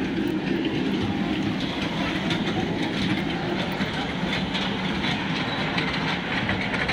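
Amusement-park kiddie train ride running along its track, heard from aboard: a steady rumble with light, irregular clicking.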